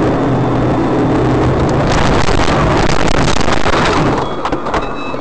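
Car engine running hard inside a moving car, then, about two seconds in, a loud rough scraping and rattling with knocks as the car crashes and the dashcam is knocked loose. Short high beeps start near the end.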